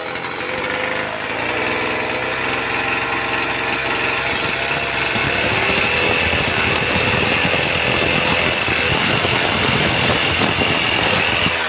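Wood lathe running, with a turning tool cutting the spinning wood: a steady machine noise with a scraping cut over it. Near the end the motor spins down.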